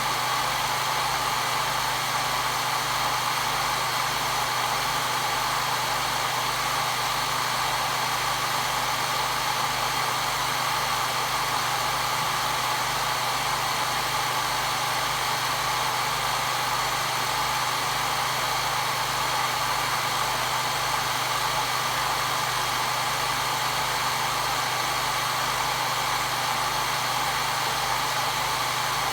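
Hair dryer running steadily at a constant speed, a continuous whooshing hum with a fixed whine, used as white noise to soothe a baby.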